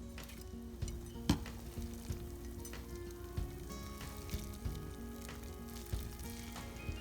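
Food frying in a pan, sizzling, with scattered pops, under background music.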